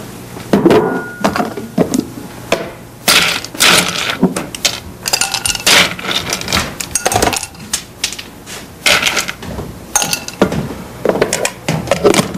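Glassware clinking and ice cubes being dropped from an ice bucket into a glass: a long, irregular run of sharp clinks, some with a brief glassy ring.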